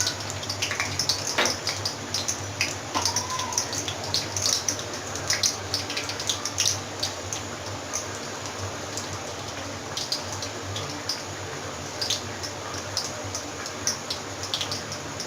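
Whole cumin seeds sizzling and crackling in hot oil for a tempering (bagar), a steady sizzle full of small pops that grow sparser after the first half.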